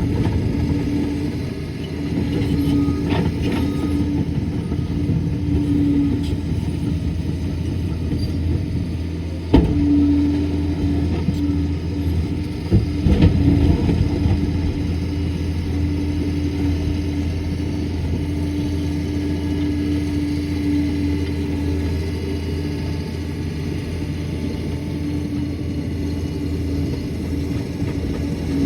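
Liebherr 746 crawler dozer's diesel engine running steadily. There is a sharp knock about ten seconds in and a few more knocks a few seconds later.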